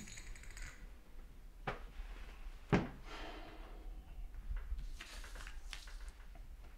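Quiet room tone with a low hum, a few faint, short knocks and some light rustling.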